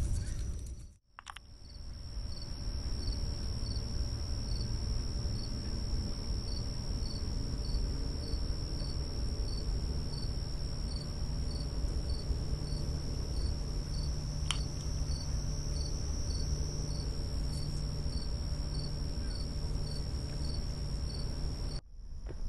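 Crickets singing: a steady high trill with a second chirp repeating evenly about twice a second, over a low rumble. The sound drops out briefly about a second in.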